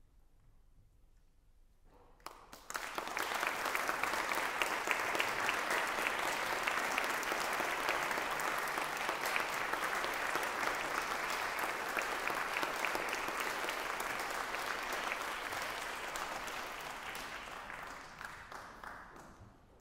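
Audience applauding: many hands clapping at once, breaking out about two and a half seconds in, holding steady, then dying away near the end.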